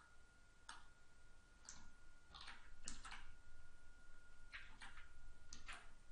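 Faint, scattered clicks of a computer mouse and keyboard, about ten over several seconds and often in close pairs, over a thin steady high-pitched whine.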